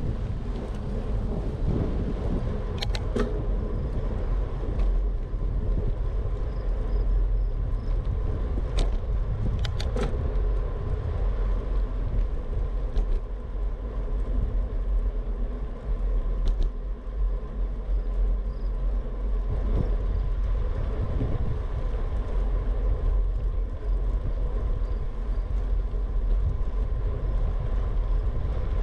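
Steady riding noise from a Trek FX2 hybrid bicycle rolling along a concrete path: tyre hum and wind rumbling on the action camera's microphone, with a handful of sharp ticks scattered through the first half.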